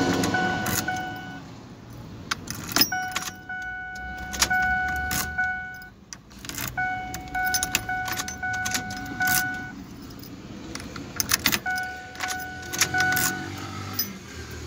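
Keys jangling and the sharp clicks of a key being worked in a newly fitted ignition lock cylinder on a 1997 Ford Windstar steering column. Meanwhile a steady electronic warning tone from the van sounds in stretches of about three seconds with short breaks, stopping near the end.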